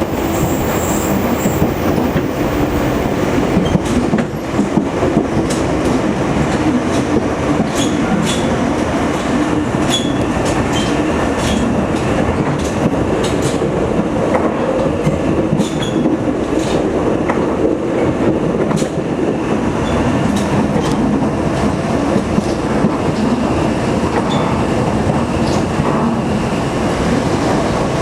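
Electric train running on the Sangi Line, heard from inside the carriage: a steady rumble of wheels on rail, with sharp clicks scattered irregularly throughout.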